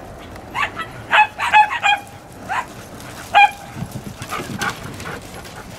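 Small dogs barking: a quick run of about eight short, high-pitched yaps in the first three and a half seconds, then fainter sounds.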